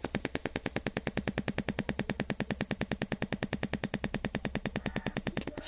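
Loudspeaker on an LA4440 amplifier board giving a fast, steady ticking, about a dozen clicks a second, over a low hum, as soon as 12 V power is applied. It puts out no proper audio, so the repaired board is still not working right.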